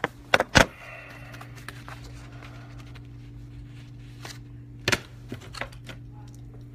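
A few sharp knocks and clicks of objects being handled: two close together near the start and another about five seconds in. They sit over a steady low hum.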